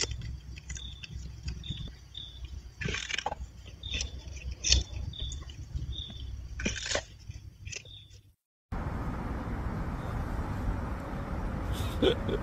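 A cat eating wet food from a plastic bowl: wet chewing and smacking with small regular clicks and a few louder crunching strokes. About eight seconds in it cuts off into a moment of silence, then a steady outdoor street hum.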